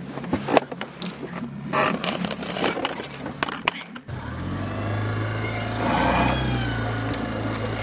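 A run of knocks and clatter of gear being handled in a sailboat cockpit, then, from about four seconds in, the steady hum of a small outboard motor running.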